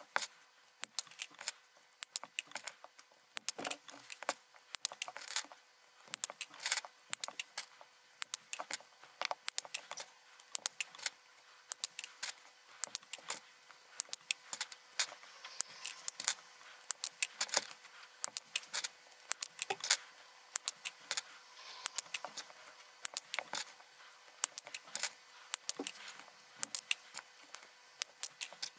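Small wire cutters snipping through RGB LED leads one LED after another, irregular sharp clicks several times a second, with the trimmed LEDs clicking as they drop into a clear plastic dish.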